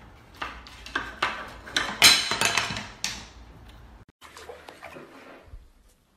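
A cat paws at a spoon wedged through the handles of two wooden cabinet doors, rattling the spoon and knocking the doors until they open: a quick run of clattering knocks, loudest about two seconds in.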